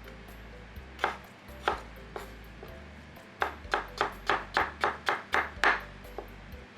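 Kitchen knife chopping vegetables on a cutting board: a couple of single cuts, then a quick run of about nine chops at three or four a second.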